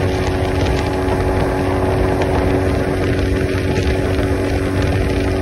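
Yamaha 20 hp four-stroke outboard motor running at a steady speed, pushing a small speedboat across the water, its drone holding one pitch over the rush of spray and wake.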